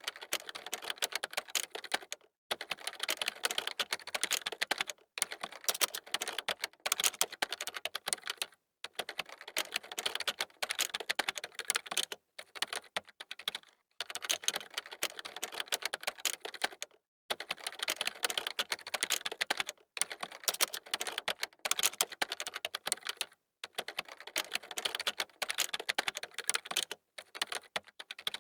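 Fast typing on a computer keyboard: rapid runs of key clicks, broken by brief pauses every few seconds.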